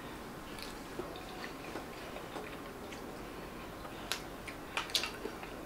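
Quiet chewing of a creamy coconut dessert, with a spoon clicking against a small ceramic bowl a few times, sharpest in the second half.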